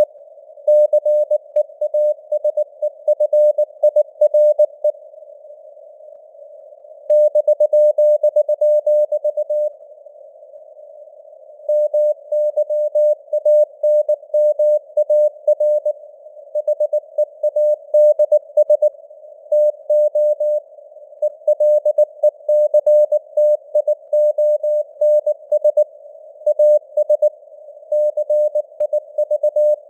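Morse code sent at 19 words per minute: a single tone of about 600 Hz keyed on and off in dots and dashes over a narrow band of simulated radio hiss, as heard through a receiver's CW filter. The keying stops twice for about two seconds in the first third.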